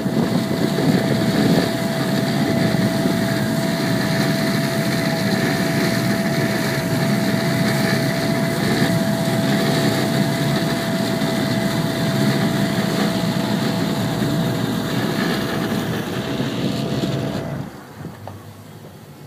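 Yamaha outboard engines running under joystick control as the boat turns in its own length, with churning propeller wash and a steady high whine over the rumble. The sound falls away sharply about a second and a half before the end.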